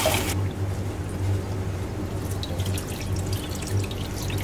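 Tap water spraying into a stainless steel bowl of rinsed butterfly pea flowers, cutting off sharply just after the start. Then water drips and trickles, and near the end the rinse water is poured out of the bowl into a steel sink, over a steady low hum.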